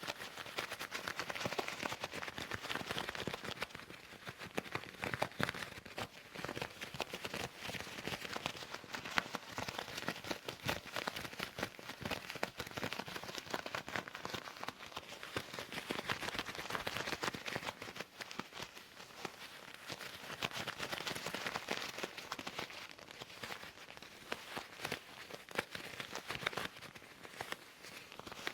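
Leather gloves rubbed, scratched and flexed close to the microphone, making a steady dense crackling and rustling of many small clicks.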